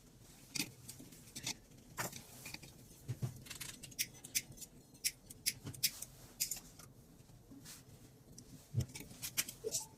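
Irregular light clicks and ticks of small parts and tools being handled, a few at a time with short gaps between.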